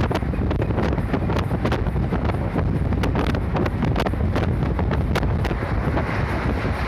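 Route bus running along the road, heard from inside: a steady low engine and road rumble with frequent rattling clicks, and wind buffeting the microphone.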